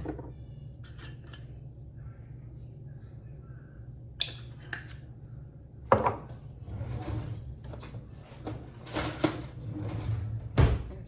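Kitchen handling sounds: seasoning containers and utensils knocking and scraping against a bowl of flour, with a sharp clack about six seconds in and a run of scraping and rustling near the end. A steady low hum runs underneath.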